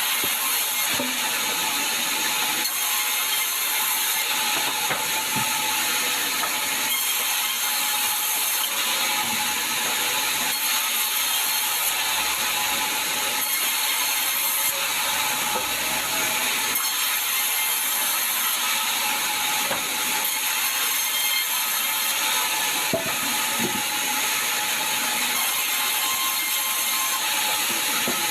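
Sawmill saw running steadily through sengon wood: a continuous high-pitched noise with a steady whine.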